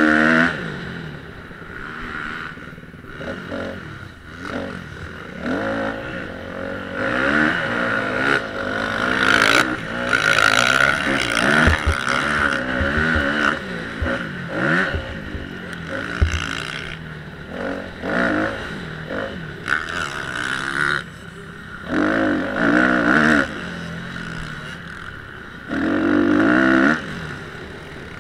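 Motocross bike engine heard from on board, its pitch rising and falling over and over as the throttle is opened and shut around a dirt track, with several loud bursts of acceleration.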